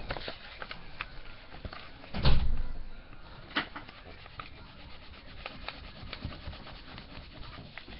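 Crayon scribbling on paper on a tabletop: scattered scratchy strokes and light taps, with a heavier thump about two seconds in.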